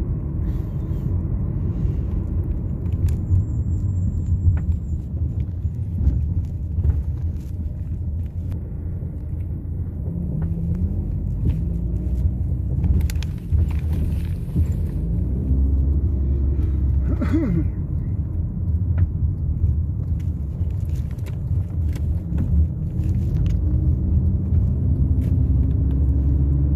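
Car cabin road noise while driving: a steady low rumble of tyres and engine, with the engine note rising a few times as the car picks up speed.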